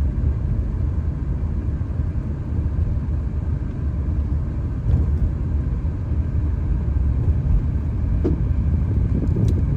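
Steady low rumble of a car being driven: engine and road noise, with a few faint clicks near the end.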